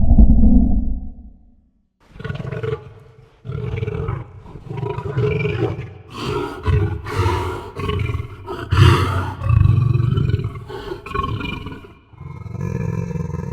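Monster growl sound effect: a deep, rasping creature growl fades out, and after a short pause a run of growls and roars follows, swelling and falling about once a second. The loudest comes about nine seconds in, with a brief dip and another growl near the end.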